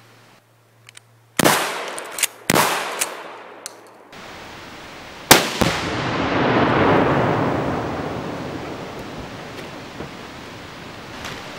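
Two gunshots about a second apart, then a Tannerite target detonating: a sharp blast followed by a long rolling rumble that swells and slowly fades over several seconds.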